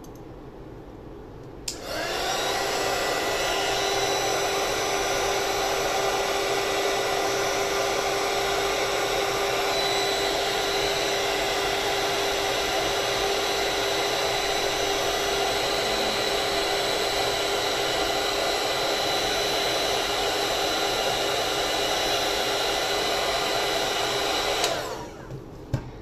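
Handheld craft heat gun for embossing switched on with a click about two seconds in. It blows steadily with a constant fan hum for over twenty seconds, then cuts off near the end. It is melting embossing powder during heat embossing.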